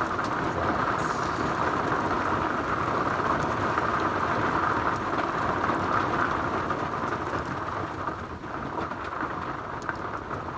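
Heavy rain pouring steadily, easing slightly over the last couple of seconds.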